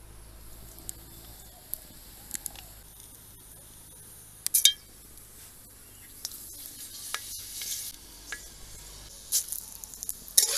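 Mustard oil heating in a metal wok, crackling and sizzling faintly, with the sizzle growing louder in the second half. There are scattered sharp clicks and one loud clatter about four and a half seconds in.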